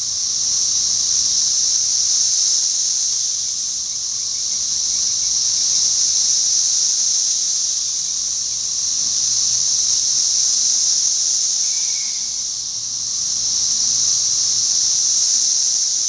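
Loud chorus of 13-year periodical cicadas massed in a tree: a steady, high-pitched drone that swells and fades slowly every few seconds.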